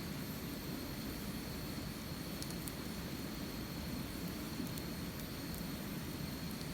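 Wood fire burning steadily, a low rushing hiss with a few faint pops and crackles. A thin steady high whine runs underneath.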